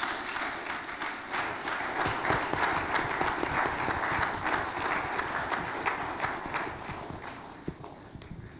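Audience applauding: a dense patter of many hands clapping that swells about two seconds in and dies away near the end.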